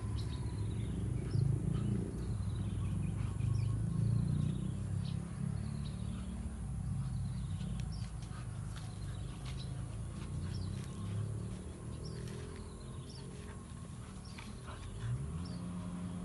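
Short, high-pitched animal calls, each falling in pitch, repeated about once a second over a low rumble. A steady low hum comes in near the end.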